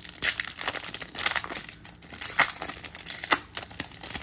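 A trading-card pack wrapper being torn open and crinkled: a run of crackling rustles, with the sharpest tears about two and a half and three and a third seconds in.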